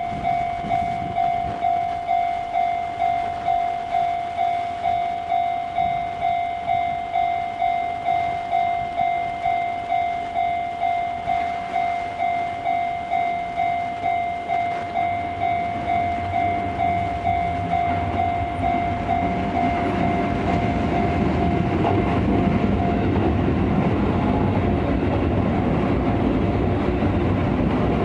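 Japanese level-crossing warning bell ringing in a steady electronic ding-ding, about one and a half beats a second. From about two-thirds of the way in, a Shinkeisei 8800 series electric train approaches and passes with a swelling rumble and wheel clatter over the rail joints, and the bell fades under it.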